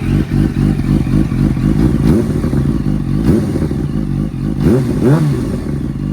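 2007 Yamaha R1 inline-four running through a Delkevic half-system exhaust with the catalytic converter deleted and the dB killer removed, idling and then blipped with a few quick throttle revs in the second half.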